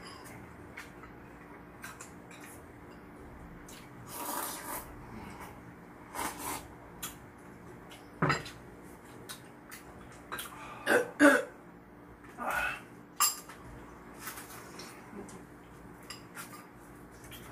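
Close-up eating sounds: soup and noodles slurped from bowls and spoons and chopsticks clicking against bowls, in short scattered bursts. A louder throat noise comes twice in quick succession a little past the middle.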